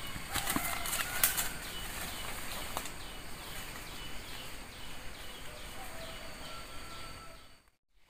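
Footsteps and leaf rustling as a person walks off through forest undergrowth. This gives way to forest ambience with a rapid repeated chirping call, about three chirps a second. The sound drops out briefly just before the end.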